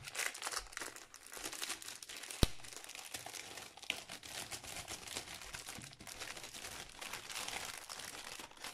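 Plastic packaging crinkling and rustling as the wrapping around a rolled diamond painting canvas is handled and opened by hand, with one sharp knock about two and a half seconds in.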